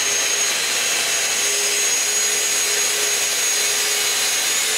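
Festool TS55 plunge track saw running at full speed and cutting through an 18 mm panel along its guide rail, its steady high whine over the noise of the blade in the wood.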